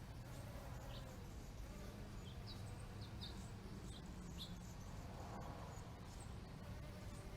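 Bees buzzing, one swelling louder as it passes close about five seconds in. Short high bird chirps are scattered over a low steady background rumble.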